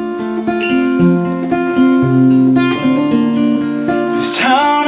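Acoustic guitar playing chords in an instrumental gap between sung lines of a folk song, the notes ringing on and changing about once a second.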